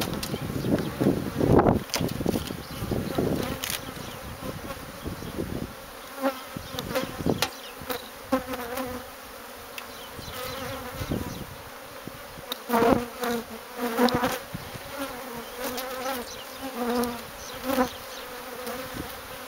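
A honeybee colony, disturbed by a hive removal, making a steady, wavering buzz of many bees in flight. Low rumbling and a few sharp knocks from handling come in the first few seconds, and scattered knocks follow later.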